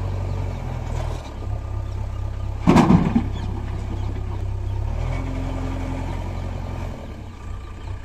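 Diesel engines of a JCB 3DX backhoe loader and a tractor running steadily. About three seconds in there is a loud, brief crash as a bucketful of soil is dumped into the tractor's trolley.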